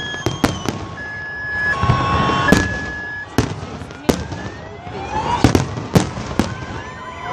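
Fireworks display: sharp bangs of bursting shells go off throughout, and whistling shells rise in pitch in the second half. For the first three seconds a steady two-note tone alternates high and low, about one note a second.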